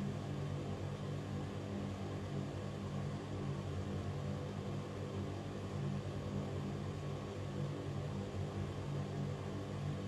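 Ventilation fan running steadily: a constant low hum under an even rush of air.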